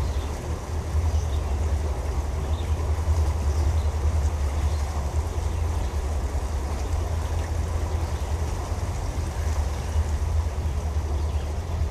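Sea Ray Sundancer cruiser under way, a steady low rumble of its Mercruiser engines mixed with wind on the microphone.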